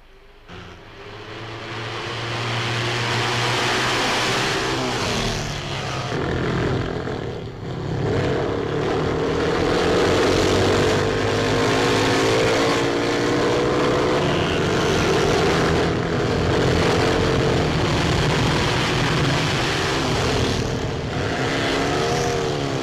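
Motorcycle and motor scooter engines running as the bikes ride along, their pitch rising and falling with the throttle. The sound fades up over the first two seconds, then stays loud.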